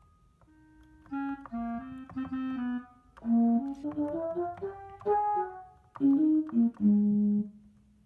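Akai MPK Mini Play's built-in clarinet and then flute preset sounds, played as three short melodic phrases on its keys after about a second of quiet, the last phrase ending on a held low note.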